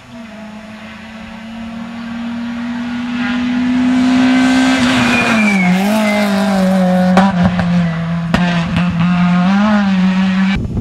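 Rally car approaching at speed and passing close by, its engine getting louder over the first few seconds, then dropping and rising in pitch as the driver lifts off and shifts. There is a brief high squeal about five seconds in and a couple of sharp cracks a few seconds later.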